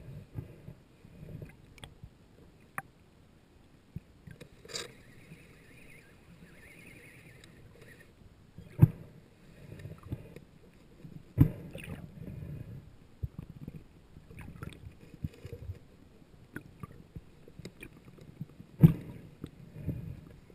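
Underwater sound: low, uneven water swishes and rumbles, with a few sharp knocks or clicks, the loudest about nine, eleven and nineteen seconds in.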